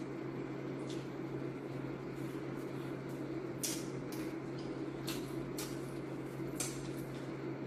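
Eating fried chicken: chewing, with a handful of short crisp crackles of the breaded skin being bitten and pulled apart by hand, most of them in the second half. A steady low hum runs underneath.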